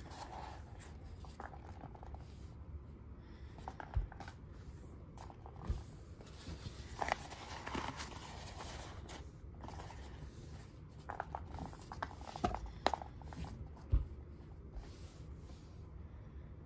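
Folded-paper origami magic ball being squeezed and flexed by hand: the creased paper crinkles and rustles with small crackles, and a few soft knocks sound against a wooden table.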